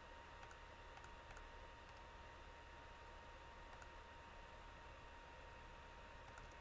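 Near silence: steady recording hiss with a faint steady whine, and a few faint clicks scattered through it.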